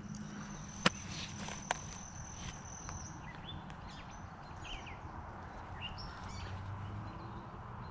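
Outdoor evening ambience with scattered short bird chirps. A steady high-pitched whine stops about three seconds in, and two sharp clicks come within the first two seconds.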